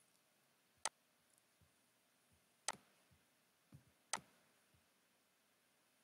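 Three sharp computer mouse clicks, spaced a second or two apart, with a few fainter soft knocks between them.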